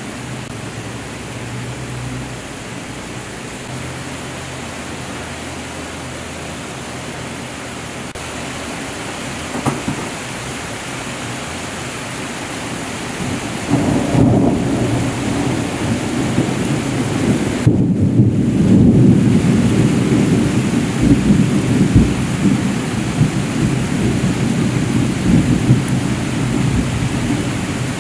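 Heavy rain falling steadily. About halfway through, a long, low rumble of distant thunder rolls in and goes on, rising and falling, for over ten seconds.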